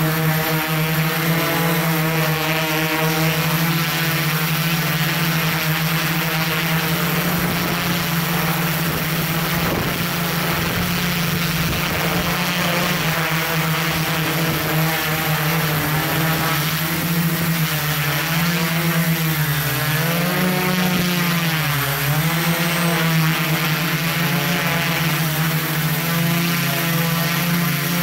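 Multirotor drone's electric motors and propellers running with a steady, pitched buzz; the pitch dips and rises several times about two-thirds of the way through as the motors change speed.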